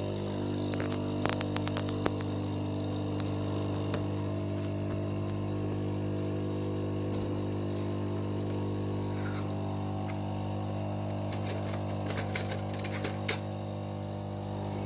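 De'Longhi Eletta Explore bean-to-cup coffee machine running with a steady low electric hum, with a burst of sharp rattling clicks near the end.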